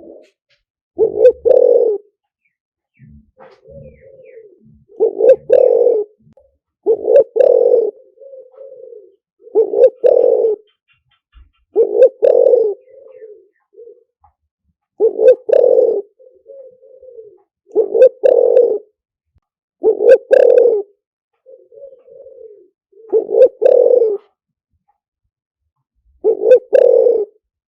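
Spotted dove cooing over and over: about ten loud coo phrases, each lasting about a second, with softer short coos between them. It is a decoy call, used to lure wild doves to a trap.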